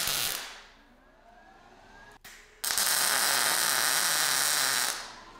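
MIG welding arc tacking sheet-metal parts: the steady hiss of one weld cuts off just after the start, then after a short click a second weld runs for about two and a half seconds and stops shortly before the end.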